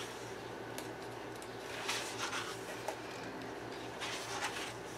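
Pages of a paperback coloring book being turned by hand: short papery swishes and rustles about two seconds in and again about four seconds in, over a faint steady low hum.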